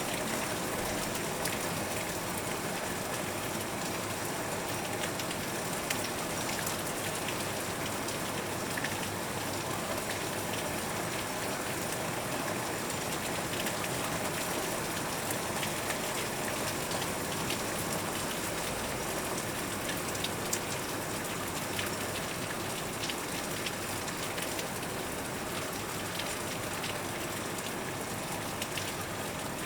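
Heavy rain falling steadily, heard through a window, with many small clicks of raindrops hitting the glass.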